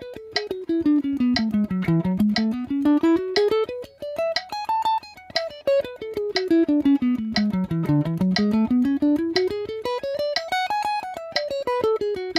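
Gibson Les Paul electric guitar picking a scale in even triplets, running down and back up through the mode several times, with a metronome clicking about once a second.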